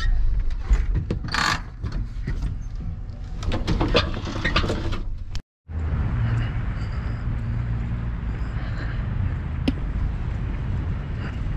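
Clicks and knocks of a vehicle door and handling in the first half. After a brief cut, steady wind buffeting the microphone outdoors.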